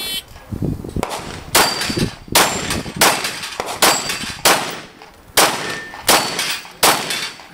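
A shot timer's start beep, then eight Glock pistol shots, roughly 0.7 s apart. Several shots are followed by the ring of struck steel plates.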